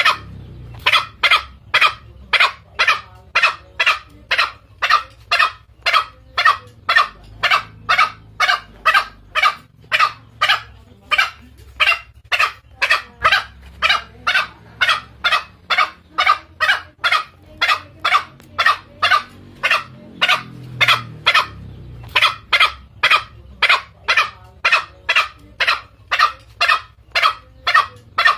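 Green junglefowl lure call: a short sharp call repeated about twice a second at a steady pace, used to draw male junglefowl in to fight.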